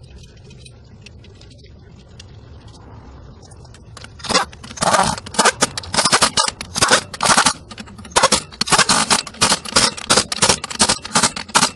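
Pneumatic wrench fed by an air hose, run in many short loud bursts from about four seconds in, spinning down the axle shaft flange nuts on a truck wheel hub. Before that there are only faint clicks.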